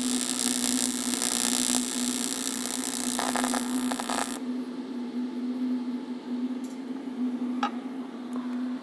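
AC TIG welding arc on thin aluminum from an AHP AlphaTIG 200X, with the AC balance set for more cleaning action: a steady buzzing hiss that stops suddenly about four and a half seconds in. A steady low hum runs under it, and a couple of faint clicks come near the end.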